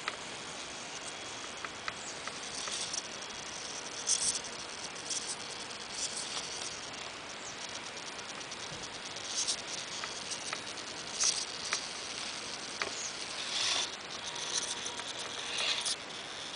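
Scattered crackling and ticking of small gravel and grit under the knobby tyres of an RC scale crawler as it creeps over a log, over a steady outdoor hiss.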